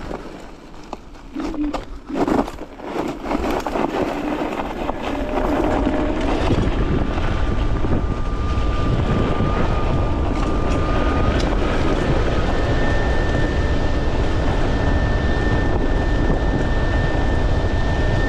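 A Kaabo GTR electric scooter speeds downhill. The first few seconds are quieter with a few knocks, then from about six seconds in wind buffets the microphone loudly. Over this a thin motor whine steps up in pitch twice as the scooter gathers speed.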